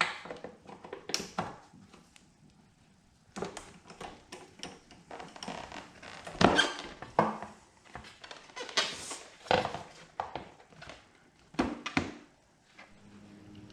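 Plastic side panels being worked off a Honda XR80R dirt bike: irregular clicks, knocks and thunks of plastic and fasteners being handled, with a little squeaking.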